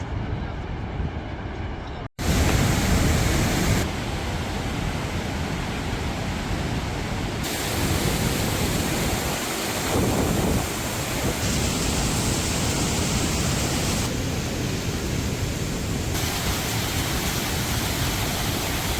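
Rhine Falls waterfall: a loud, steady rush of falling water, its tone shifting abruptly several times, with a brief dropout about two seconds in.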